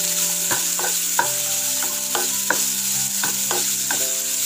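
Wooden spatula stirring and scraping crushed raw jackfruit around a non-stick frying pan, about two scrapes a second, over a steady sizzle of hot oil. This is the stir-fry stage of jackfruit thoran.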